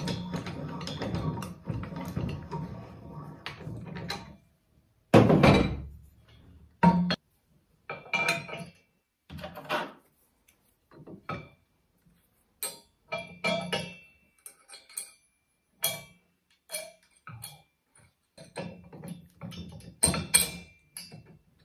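Steel parts of a Black Boar manual implement lift being worked by hand: the handle turning the threaded adjustment rod to lower the linkage, then separate metal knocks and ringing clinks as the linkage and a pivot bolt are fitted, the loudest thumps a few seconds in.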